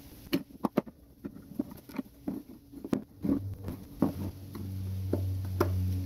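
Sharp plastic clicks, knocks and cracks as the plastic housing of a 2010 Mini Cooper S throttle body is pried apart with a flat screwdriver and its parts handled. A low steady hum comes in about halfway through and carries on to the end.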